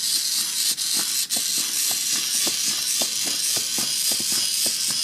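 HexBug Spider micro robot walking under remote control: a steady high hiss from its small motor, with light clicks from its legs about four times a second.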